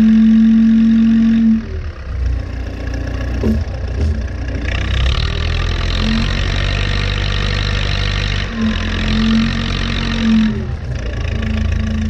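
Diesel engine of a 1979 Allis-Chalmers 715B loader backhoe running under load as the front bucket pushes snow. A steady whine sounds over it at the start and comes back in the last few seconds.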